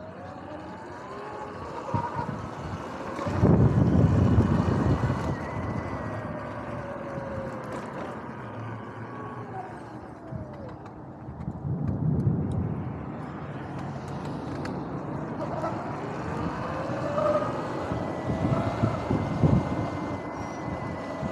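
Electric dirt bike's motor whining, rising and falling in pitch as the bike speeds up and slows, with tyre noise. Wind buffets the microphone in low gusts about three seconds in, around twelve seconds, and again near the end.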